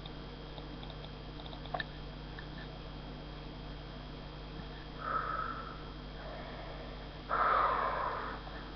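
A person breathing hard near the microphone: a short sniff or puff of breath about five seconds in and a longer, louder one about seven seconds in, over a steady electrical hum, with a faint click near two seconds.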